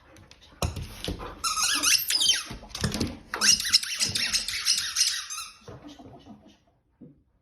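Akita dog whining and squealing excitedly in high, wavering cries for about five seconds, then quietening.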